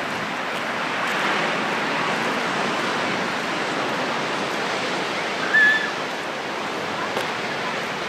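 Ocean surf washing over a rock shelf, a steady rushing. A short high chirp stands out about five and a half seconds in.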